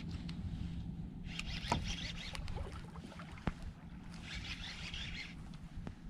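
Baitcaster reel being wound in two short spells, each about a second long, while a hooked fish is played, over a low hum, with a couple of light knocks.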